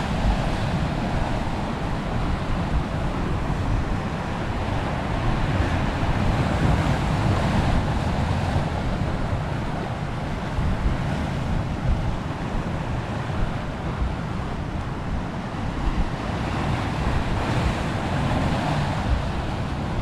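Sea surf breaking and washing over rocks, with wind buffeting the microphone as a steady low rumble.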